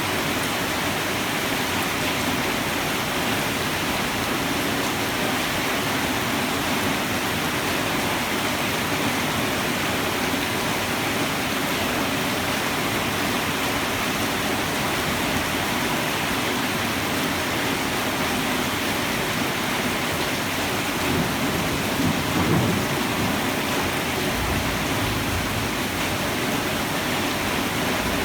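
Heavy rain falling steadily, a dense even hiss, with a brief low rumble about three quarters of the way through.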